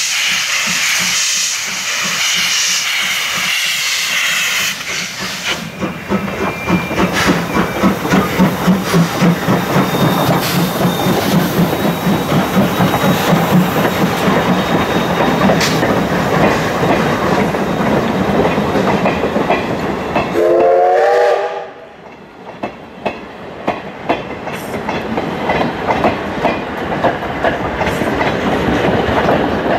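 Two steam tank locomotives, JNR classes C11 and C10, working double-headed. First comes a steady hiss of steam from the cylinder drain cocks. Then the locomotives pass with loud, rhythmic exhaust chuffs, and give one short steam whistle about two-thirds of the way through. After that the coaches roll by with the clickety-clack of their wheels on the rail joints.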